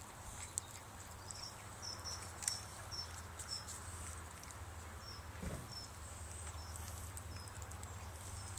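Vervet monkeys chewing and handling food, heard as scattered small clicks and crunches, with a run of short high chirps repeating about twice a second over a faint low hum.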